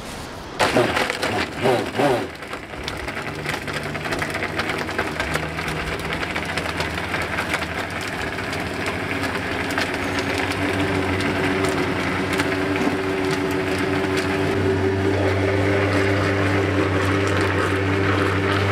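Countertop electric blender blending lemon pieces and water: loud cracking and knocking for the first couple of seconds as the chunks strike the blades, then a steady motor hum that slowly grows louder and changes tone about fourteen seconds in as the mix turns smooth.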